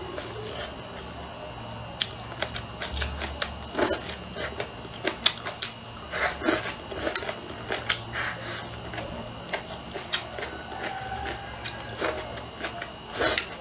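Close-miked eating sounds: chopsticks clicking against the bowl, with chewing and slurping of food in an irregular run of sharp clicks and wet crackles.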